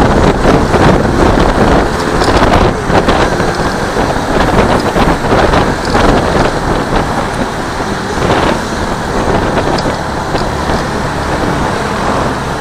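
Wind rushing over the camera microphone of a Honda Click 150i scooter riding in traffic, mixed with road and engine noise; it eases a little over the last few seconds.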